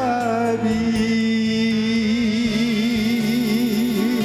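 A man's voice holding one long sung note with a wide, even vibrato, the last note of an enka verse, over a karaoke backing track.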